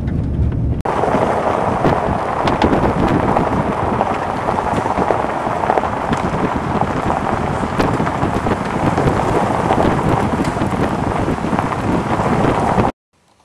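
Loud, steady rushing noise, like wind on the microphone or heavy rain, that starts abruptly about a second in and cuts off suddenly near the end.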